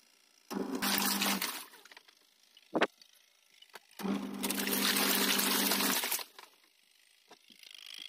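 Top-loading washing machine filling: water rushing from the inlet into the tub with a steady low hum under it, heard twice, for about a second just after the start and for about two seconds from the middle, each starting and stopping abruptly. A sharp click falls between them.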